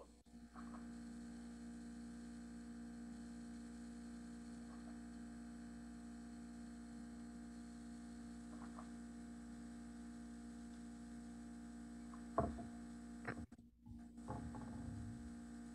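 Steady low electrical hum picked up by the microphone, with a couple of short knocks near the end.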